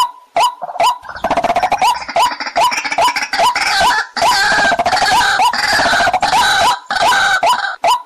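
White-breasted waterhen calls: a loud, regular series of short hooked notes, about two to three a second. From about a second in, many calls overlap into a dense chorus, which thins back to the single series near the end.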